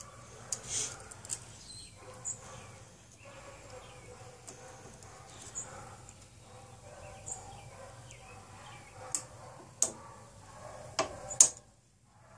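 Light metallic clicks and ticks of a piston ring being spread with a ring-expander plier and snapped into its groove on a new piston, with a few sharper clicks near the end.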